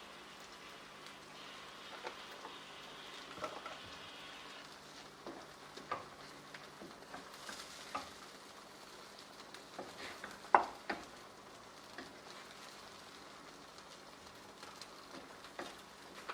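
Butter chicken gravy, with cream just stirred in, sizzling gently in a pan while a spoon stirs it, scraping and knocking against the pan now and then. The loudest knock comes about ten and a half seconds in.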